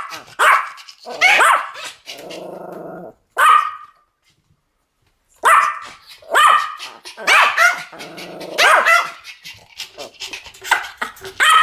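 Two Pomeranians barking in rapid, high-pitched volleys, overlapping each other, with a low growl of about a second twice in between. The barking stops for about a second and a half near the middle, then resumes.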